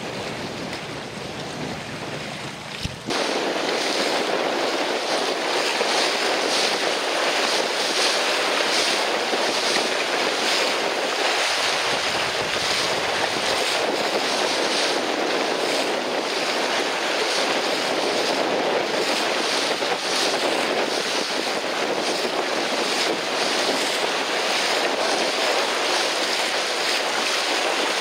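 Wind on the microphone over choppy sea water, an even rushing noise; about three seconds in it changes abruptly to a louder, steady rush.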